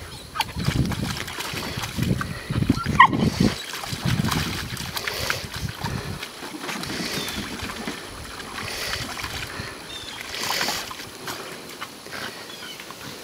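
Dogs wading and splashing in a hard plastic kiddie pool: irregular water splashes and sloshing, with a short high squeak about three seconds in.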